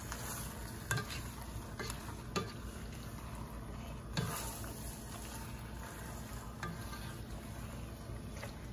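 Tongs tossing spaghetti in a creamy tomato sauce in a pot: wet stirring with a few knocks of the tongs against the pot, over the steady sizzle of the sauce simmering.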